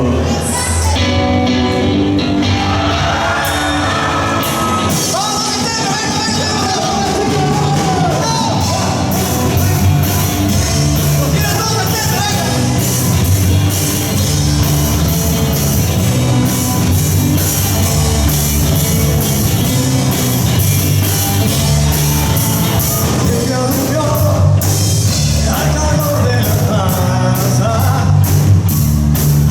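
A live rock band playing a cover: a lead vocalist singing over drum kit, electric guitar and bass guitar, with a steady driving beat.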